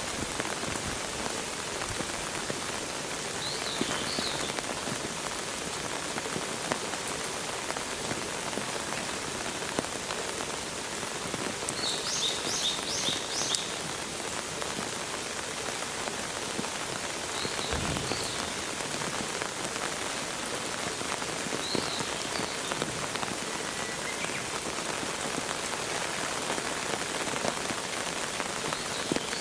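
Steady rain falling on hard surfaces. Short high chirps come through now and then, including a quick run of about five notes near the middle.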